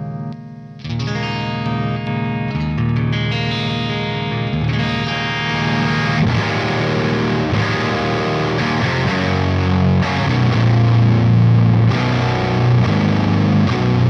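Electric guitar played through a Quad Cortex neural capture of an Axe-Fx model of a Bogner Shiva 20th Anniversary amp, with a driven, breaking-up tone. After a short gap about half a second in, picked notes build into fuller chords with heavier low end from about ten seconds in.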